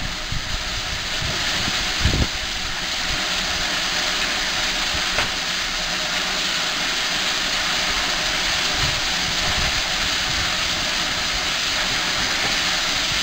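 GWR 5600 class 0-6-2 tank locomotive standing in steam, hissing steadily as steam escapes, the hiss building a little over the first few seconds. A brief thump about two seconds in.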